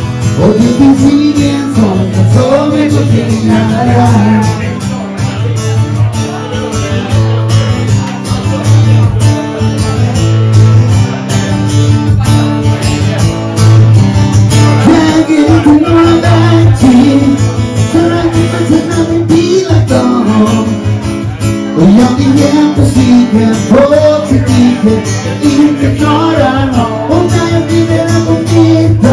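Live acoustic music: a man singing into a microphone in phrases over a strummed acoustic guitar.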